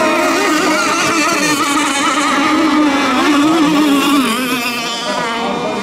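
Several radio-controlled racing boats' small engines whining together, their pitches wavering up and down as the boats race around the course.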